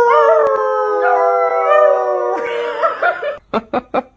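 Dog howling: one long call sliding slowly down in pitch, ending about two and a half seconds in, then a few short sharp sounds near the end.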